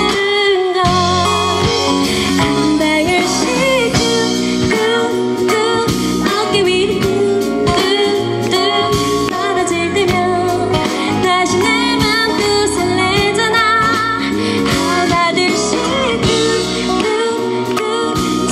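A woman singing a pop ballad live into a handheld microphone over backing music, her held notes wavering with vibrato.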